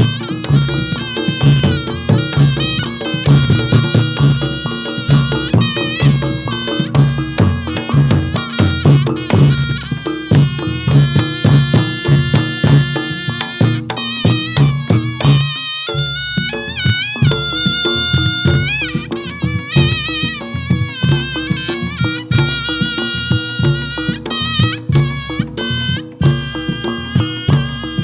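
Reog Ponorogo ensemble accompanying jathilan dance: a slompret (shawm) plays a wavering, bending melody over a steady beat of drums and gongs. The music breaks off briefly about halfway, then resumes.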